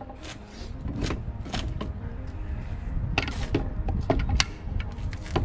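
Firework mortar tubes being set down into a wooden rack: a series of separate knocks and clunks, about seven, as tubes bump the wooden boards and the tubes beside them.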